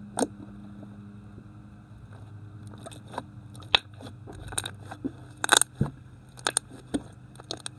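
Thick slime being kneaded and pressed by hand, giving irregular sticky pops and crackles: a few at first, then much more often from about three seconds in. A low steady hum runs underneath.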